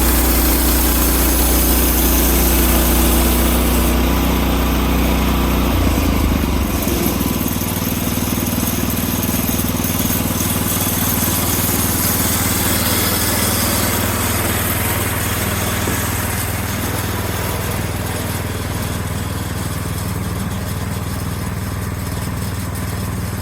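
Portable bandsaw sawmill's gas engine running steadily while the blade cuts through a log. About six seconds in, the engine note shifts and the hissing of the cut gradually eases.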